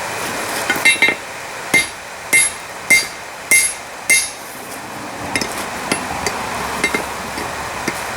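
Hand hammer striking hot steel on an anvil, with the ringing ping of each blow: about seven heavy blows at a steady pace of roughly one every half second or so, then lighter, sparser taps in the second half. The smith is fullering and squaring a hammer head that is being forged into a flatter.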